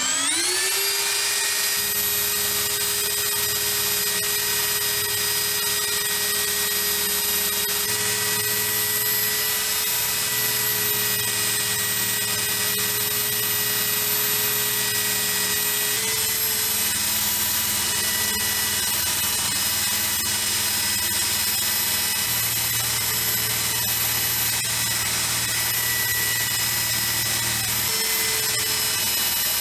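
Motor-driven steel wire wheel spinning up to speed in about the first second, then running with a steady whine while a brass opera-glasses barrel is held against it, the wire bristles brushing off dirt and paint residue.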